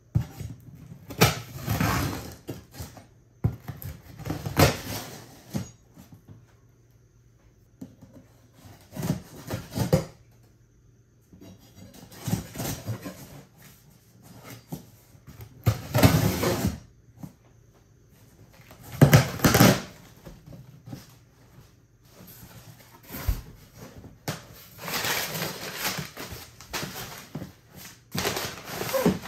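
A cardboard shipping box being opened: packing tape slit along the seam and pulled, cardboard flaps handled, and crumpled paper packing moved, heard as a series of noisy bursts about a second long with short pauses between.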